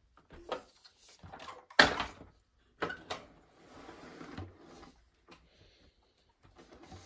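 Irregular knocks, clunks and rustles as a Eureka Bravo upright vacuum is handled and tipped back on carpet, with a sharp knock about two seconds in; the vacuum's motor is not running.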